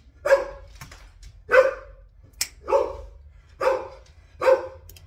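Dog barking in play, five loud barks about a second apart.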